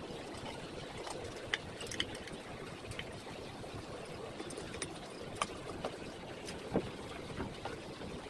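A handful of short, light clicks and taps of metal parts being handled on the aluminium platen of a hot-stamping and die-cutting press, over a steady background hiss.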